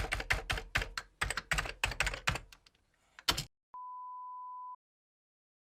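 Rapid keyboard typing, about five clicks a second, for roughly two and a half seconds. After a short pause there is one more brief burst, then a single steady high beep that lasts about a second.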